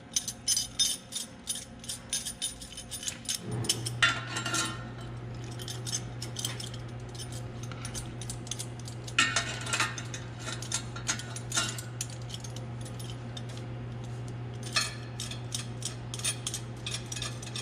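Metal clinking and rattling as steel exhaust clamps and pipes are handled and slid into place. Many short, sharp clinks come irregularly, in brighter clusters. A steady low hum starts about three and a half seconds in.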